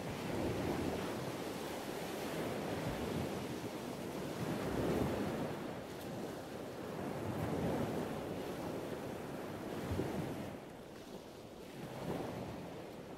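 Small waves breaking and washing over a shingle beach, swelling and fading every two to three seconds, with wind buffeting the microphone.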